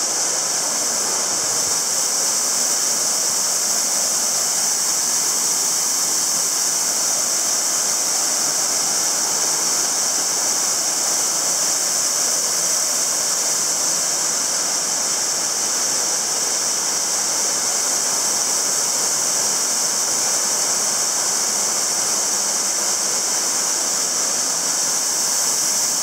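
Small waterfall splashing into a rocky pool, with creek water running over the rocks: a steady rushing sound, brightest in its high hiss.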